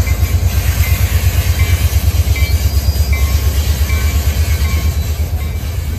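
EMD SW1 diesel switcher's six-cylinder 567 engine running as the locomotive moves slowly, a low rumble with a steady, even pulsing beat.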